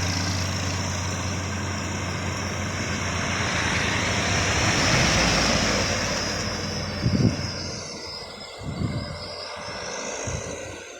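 Truck engine running with a steady low hum, the noise swelling about halfway through and then fading away, with two or three short thumps near the end.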